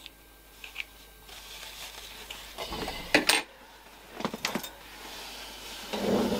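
Light handling sounds of stretch denim being turned right side out, with a few scattered clicks and taps as a knitting needle pushes out the corner; the loudest tap comes a little past the middle.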